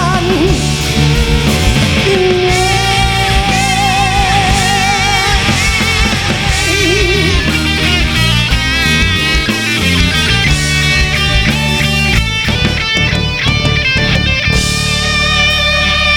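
Instrumental break of a pop-rock ballad: a guitar plays a lead melody with wide vibrato and bends over a full band backing.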